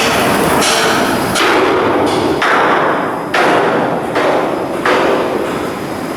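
Hammer blows on steel: about six strikes, roughly one a second, each with a ringing tail over continuous workshop din.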